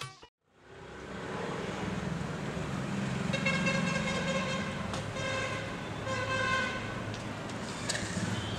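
A vehicle horn tooting over and over on one steady pitch, from about three seconds in, over a low engine hum and street noise.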